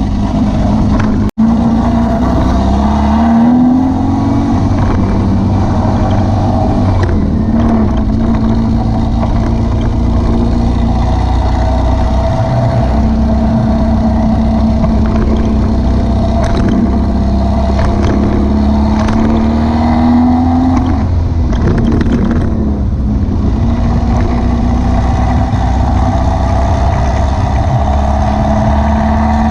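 VW beach buggy's engine running on the road, heard from on board with steady road noise. Its note rises several times as it accelerates. There is a momentary break in the sound about a second in.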